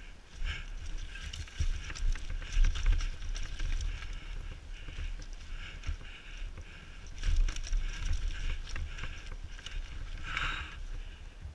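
Downhill mountain bike rattling and knocking as it rides fast over a rough dirt trail, with a heavy rumble of wind buffeting the helmet-mounted camera.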